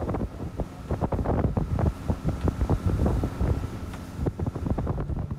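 Wind buffeting the microphone on a small boat under way, with irregular knocks and slaps as the hull rides over the chop. Music comes in near the end.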